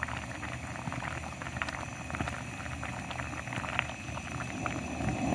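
A pot of fish and vegetable stew boiling, with a steady simmering hiss and many small irregular pops from the bubbles.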